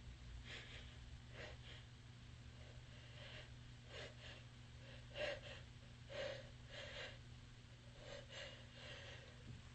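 A person with a stuffy, runny nose sniffling and breathing: about a dozen short, faint sniffs and breaths at irregular intervals, a little louder around the middle.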